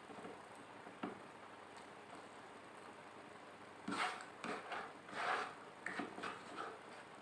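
Close-miked eating: a single click about a second in, then a run of irregular chewing and mouth noises from about four seconds in until near the end.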